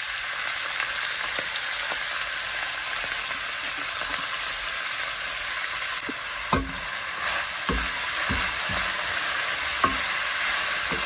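Chopped spinach sautéing in hot oil in a stainless steel pot, with a steady sizzling hiss. From about six seconds in a spatula stirs it, knocking and scraping against the pot a handful of times.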